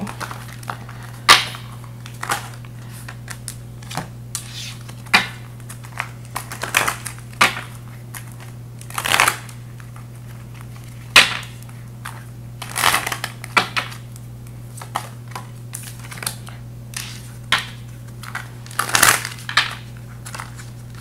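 Tarot and oracle cards being shuffled and handled by hand: irregular sharp snaps and short rustling riffles of card stock, about one every second or so, over a steady low hum.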